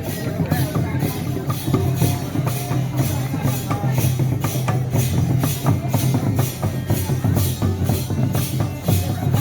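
Music with a steady drumbeat: a deep, even low end under sharp percussion strokes at about three a second.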